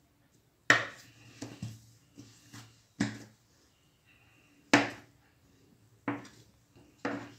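Metal bench scraper pushed down through a ball of brioche dough, its blade knocking on the granite countertop: several sharp knocks a second or two apart, with fainter taps and scrapes between.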